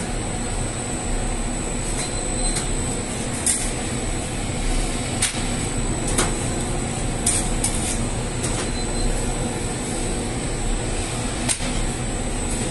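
Flatbread-bakery machinery running steadily, the dough-sheeting rollers turning, with a constant hum, a thin high whine and scattered irregular clicks.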